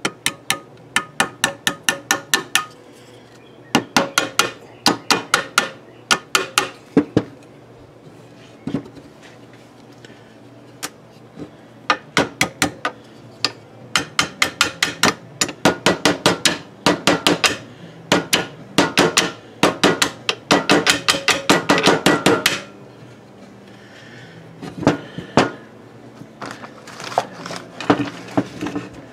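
Small hammer tapping a steel locking tab into place behind the wheel cylinder on a drum-brake backing plate: runs of quick, light metallic taps, several a second, broken by short pauses, with the longest run in the second half.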